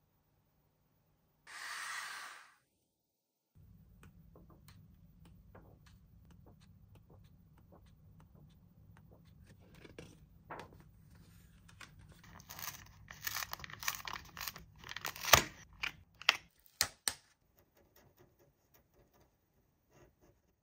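Paper colouring-book pages being handled and flipped: soft rustles and ticks, then a run of louder crisp page turns and crinkles over a few seconds past the middle, settling to faint scratches. A short burst of noise comes about two seconds in.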